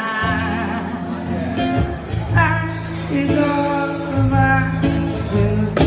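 A pop song performed live: a singing voice over acoustic guitar, with steady low notes underneath.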